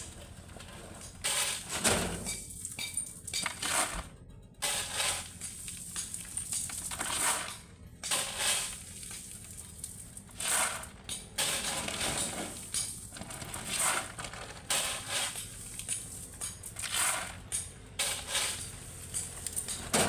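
Shovel digging into a pile of crushed gravel, a crunching scrape and rattle of stones repeated about once every second or two.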